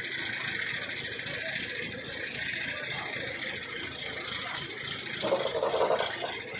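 A heavy vehicle engine running steadily at idle, likely the recovery crane holding its hooks over the overturned lorry. A louder, rougher sound rises over it about five seconds in and lasts just under a second.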